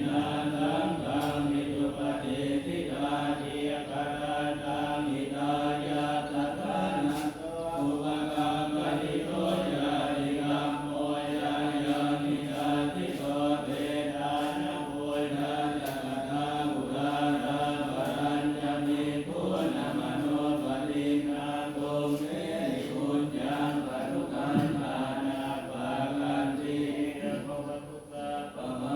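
Buddhist monks chanting Pali verses in unison, a continuous recitation held on one steady pitch with even, rhythmic syllables.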